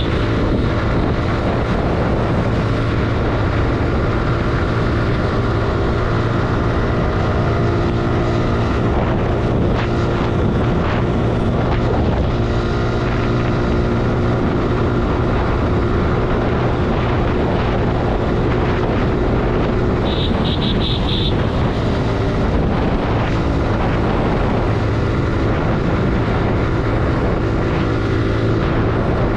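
Suzuki Gixxer 155's single-cylinder four-stroke engine running steadily at cruising speed, with wind on the microphone. A brief rapid high beeping sounds about twenty seconds in.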